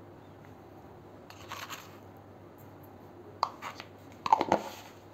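Salt sprinkled by hand onto flour in a steel bowl, a faint soft rustle, followed by a few sharp clicks and knocks of a container being handled, loudest about four and a half seconds in.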